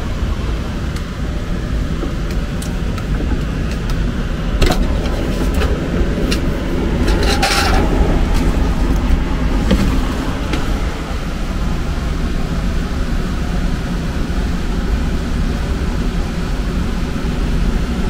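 Trane TAM9 air handler's variable-speed blower running hard, a steady rush of air, working against over an inch of static pressure from an undersized 20x20 media filter. The pleated filter is handled and slid out of its cabinet, with a few knocks and a rustling scrape about seven to eight seconds in.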